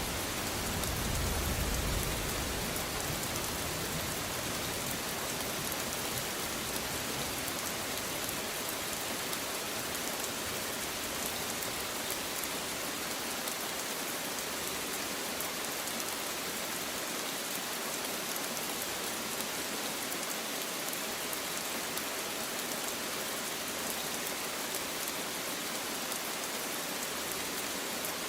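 Steady rain falling on leaves, an even hiss throughout. A low thunder rumble fades out over the first couple of seconds.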